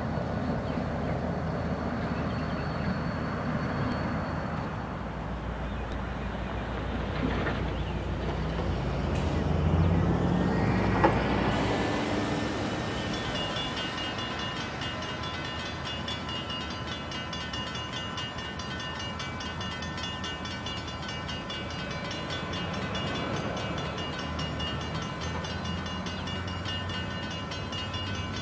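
CSX GP39-2 diesel-electric locomotive, with its turbocharged EMD engine running, passing with a single car. It is loudest about ten seconds in, then draws away.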